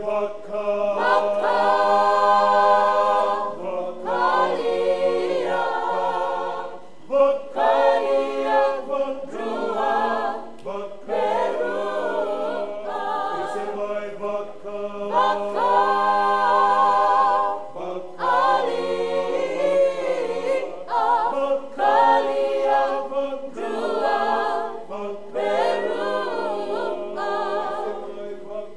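A small group of men and women singing unaccompanied in harmony. The song moves in phrases of a few seconds, with a low note held under most of them.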